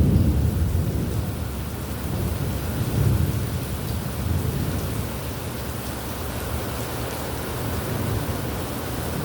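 Steady rainfall with rolling thunder: low rumbles swell at the start and again about three and four seconds in, then fade under the rain.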